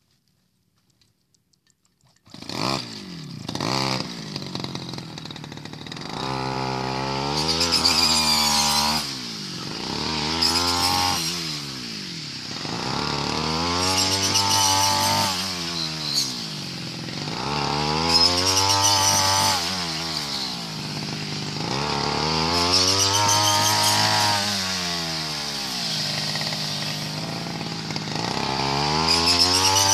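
Small petrol engine of a backpack rice-cutting machine, starting suddenly about two seconds in and then revving up and down in repeated surges, roughly every four seconds.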